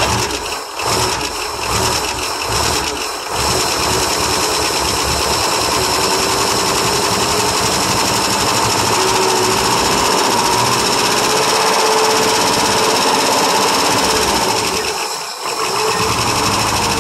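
International 392 V8 cranking with uneven pulses for about three seconds, then catching and running steadily on gas poured into its Holley carburetor, on a cold start after sitting some 28 years. Its note falters briefly about fifteen seconds in, then picks up again.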